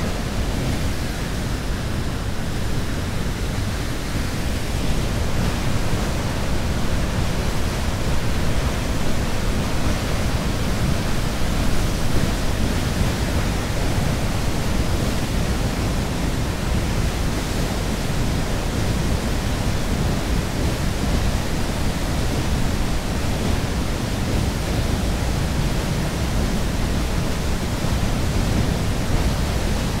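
Waterfall pouring into a shallow rocky pool close by: a steady, unbroken rush of falling water with a low rumble under it.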